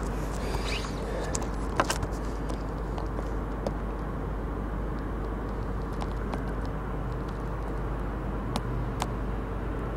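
Steady mechanical hum and background noise, like an idling engine or plant machinery, with a few light clicks.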